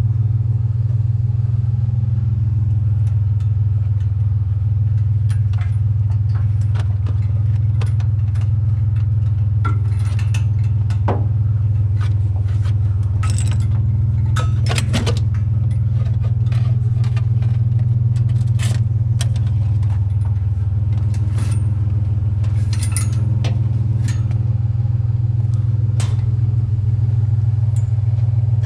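A truck driving: a steady low engine and road drone, with scattered sharp rattles and clicks.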